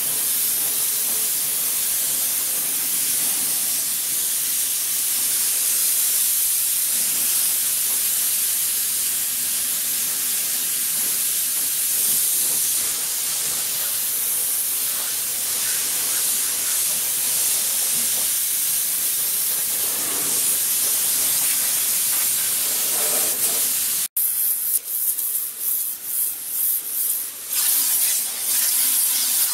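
Cordless electric pressure washer spraying a high-pressure water jet: a steady hiss. After a sudden break near the end, the jet from a zero-degree nozzle hisses in short, uneven bursts as it is played over the truck's side rail and fender.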